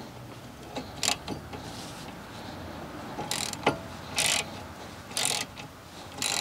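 Socket ratchet clicking in short runs as it is swung back and forth on a front brake caliper bolt. There are four runs roughly a second apart, starting about three seconds in.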